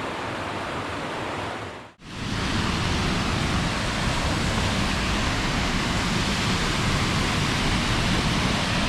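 Steady outdoor rushing noise, with no distinct events. About two seconds in it fades out briefly, then comes back louder and steady.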